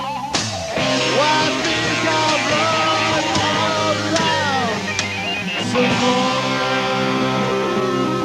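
Live rock band playing with no vocals, the guitar's notes bending and sliding, with a long downward slide about four seconds in.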